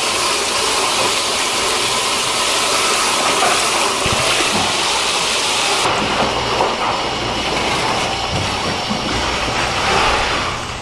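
Running tap water splashing steadily as napa cabbage is rinsed by hand, with the hiss easing a little about six seconds in.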